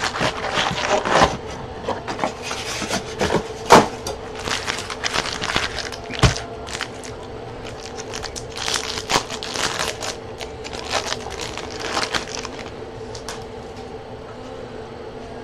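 Foil wrappers of Topps Chrome baseball card packs and their cardboard box being handled and torn open: a run of crinkling and crackling that thins out after about twelve seconds. A faint steady hum sits underneath.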